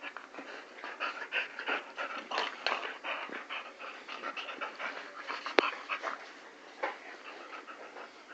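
Two puppies play-fighting and mouthing at each other, panting in quick, irregular breaths with snuffles and scuffling. A single sharp click comes a little past halfway.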